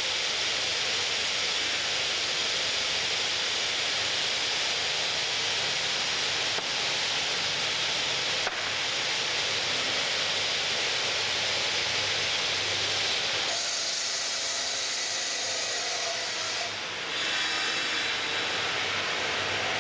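Ring-type granite cutting machine running, a steady hiss as it works on granite stone. The sound changes character about 13 seconds in and dips briefly about 17 seconds in.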